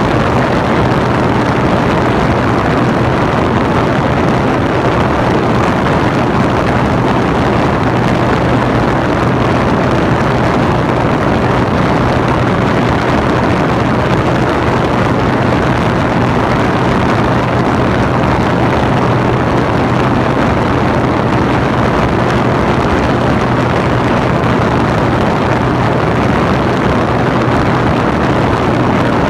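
Cabin noise of a Cirrus SR22T in flight: its turbocharged six-cylinder engine and propeller running at steady power under the rush of air, a constant loud drone with a steady low hum that never changes.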